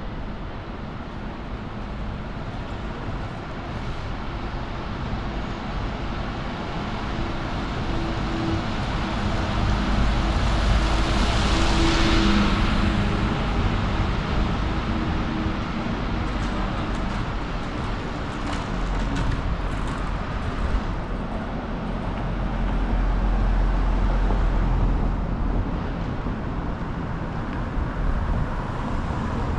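City street traffic: a car passes close by, loudest about twelve seconds in, with a second vehicle rumbling past later on.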